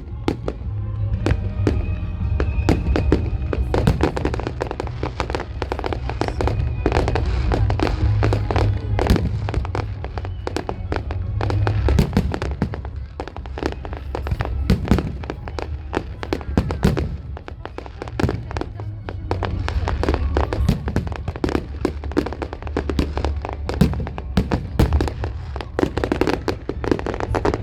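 Fireworks display going off continuously: a dense run of bangs and crackling pops, with music playing over them.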